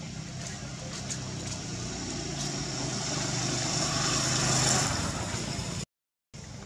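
A motor vehicle's engine running and growing louder as it approaches, loudest a little before the end. The sound cuts off suddenly near the end.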